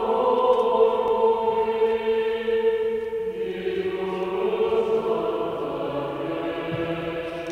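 Choral singing in long held notes, moving to a new chord about three seconds in, with the long ringing reverberation of a large church.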